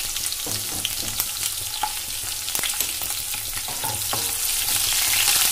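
Slit green chillies, garlic and mustard seeds sizzling in hot oil in a nonstick kadai for a tempering, with scattered sharp clicks and pops. The sizzle grows louder toward the end.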